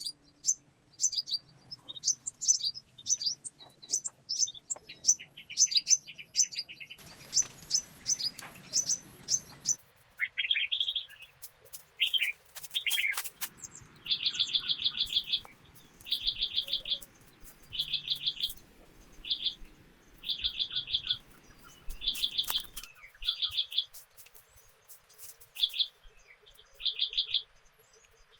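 Birds singing in a forest: quick high chirps at first, then from about halfway one bird repeats a short trilled note about once every second or so.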